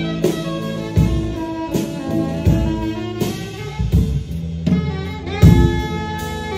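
Jazz music: held melodic notes over a steady drum beat.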